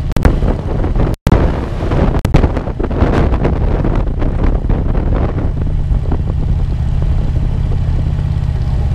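Motorcycle running at road speed, its engine mixed with heavy wind rush and buffeting on the handlebar-mounted camera's microphone. The sound cuts out for an instant about a second in.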